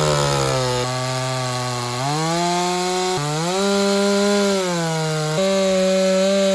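Two-stroke chainsaw running at high speed while cutting a log to length. Its pitch holds, climbs in steps and jumps abruptly several times as the load on the chain changes.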